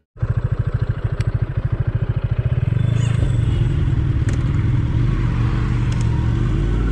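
Kawasaki Ninja 1000's inline-four engine running as the motorcycle is ridden, heard from on board. The engine note pulses quickly for the first two seconds or so, then settles into a steady drone.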